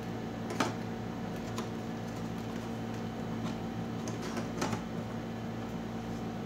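Steady machine hum in the room, with a few light clicks and taps as hands handle the TV's ribbon cables and circuit board: a sharp one about half a second in, and a couple more around four and a half seconds in.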